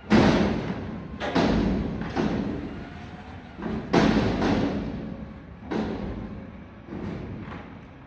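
Mack McNeilus front-loader garbage truck dumping a steel dumpster over its cab into the hopper: a run of about seven loud bangs and thuds as the upturned container is emptied. Each bang is followed by a rumble dying away, and the loudest come at the start and about four seconds in.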